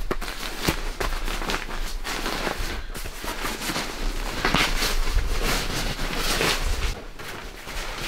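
Nylon sleeping bag rustling and crinkling as it is pulled from its strapped compression sack and spread out, in a dense run of crackles.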